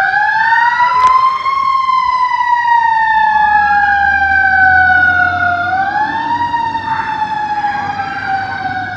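Fire engine siren wailing as the engine drives off: a rise in pitch over the first second and a half, then a long slow fall, a short rise again about six seconds in, and a slow fall once more.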